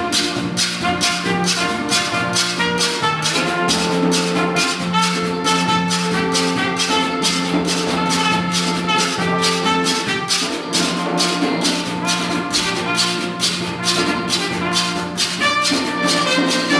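Live Bahamian rake 'n' scrape music: a hand saw scraped in a steady, even rhythm over sustained melody notes and drum.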